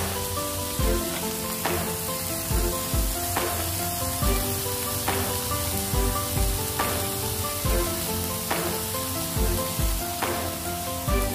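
Chicken yakitori skewers sizzling on a ridged grill pan, with background music that has a steady beat a little more than once a second.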